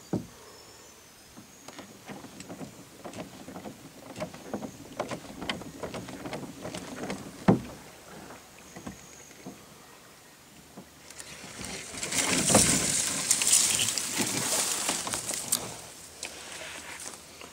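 Small kayak being paddled along a still creek: irregular paddle splashes and light knocks on the hull, with one sharp knock about seven seconds in. About eleven seconds in, a louder hissing rush takes over for around five seconds, then dies away.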